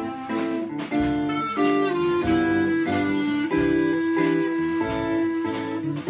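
Clarinet playing a slow jazz-standard melody over a strummed small banjo, a live acoustic duo. A long held clarinet note comes in the second half.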